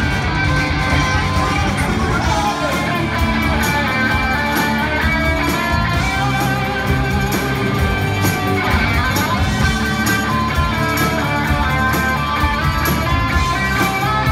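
Live rock band playing loud and steady: electric guitars over a drum beat with regular cymbal hits, heard from among the audience.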